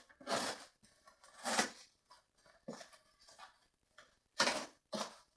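Cardboard shipping box being opened by hand: several short rustles and scrapes of cardboard and packing material.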